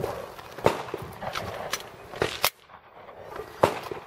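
A string of sharp, irregularly spaced cracks and knocks, the loudest about two-thirds of a second in and again near the end, with a brief near-quiet gap in the middle.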